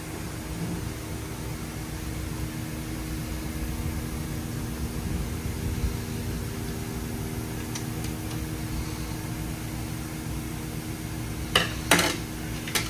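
A steady mechanical hum with two faint even tones, like a running fan. Near the end come three short sharp knocks, the last two close together.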